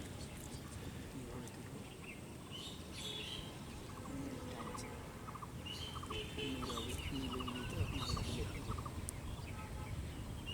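Birds calling outdoors, with short chirps and a rapid trill, busier in the second half, over a low steady background rumble and faint distant voices.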